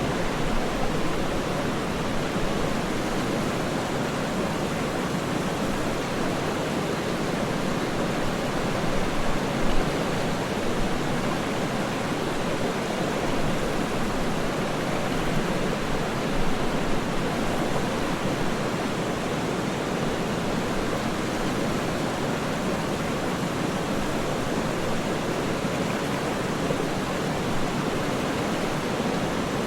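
Waterfall rushing steadily, an even wash of water noise with no pauses or changes.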